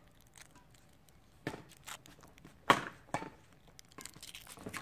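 Badminton rackets striking a shuttlecock during a rally: a few sharp hits about a second apart, the loudest a little past halfway.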